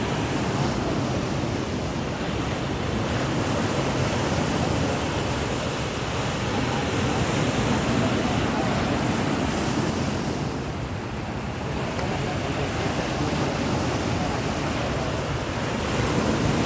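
Floodwater at a dam rushing in a steady, dense noise that swells and eases slightly but never stops.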